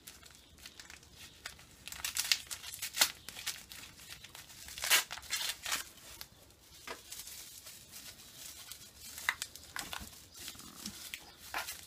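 Gift wrapping being torn open and crumpled by hand to unwrap a small package, in short crackles with pauses between them.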